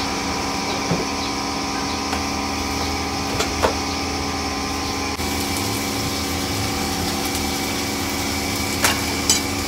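Pork pieces deep-frying in a wok of hot oil: a high, hissing sizzle starts about halfway through as the pork goes into the oil, over a steady mechanical hum from the stove. A few light metal clicks come from the wire skimmer against the wok and pot.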